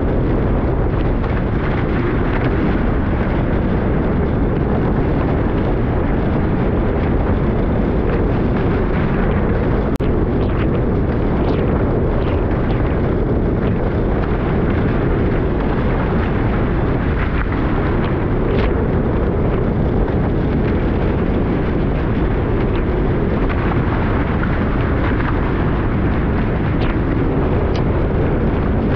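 Wind buffeting the GoPro's microphone in a steady, low rumble, with the rush of a Hobie 16 catamaran sailing through the water in a strong breeze.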